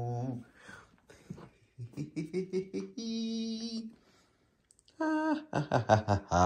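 A man's voice humming and vocalizing a tune without clear words: a held low note at the start, a brighter held note about three seconds in, then short broken notes running into a loud held note at the end.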